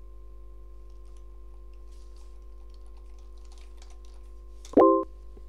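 Soft computer-keyboard typing, light scattered key clicks over a steady hum, then nearly five seconds in a short, loud electronic beep of several pitches at once, about a quarter second long.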